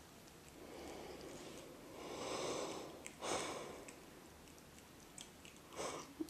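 A few soft breathy sniffs or breaths close to the microphone, with three short swells a second or two apart, over faint room noise.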